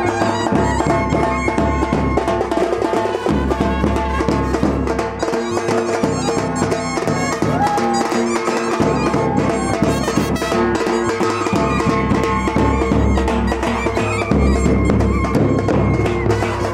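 Instrumental music with drums and a steady beat.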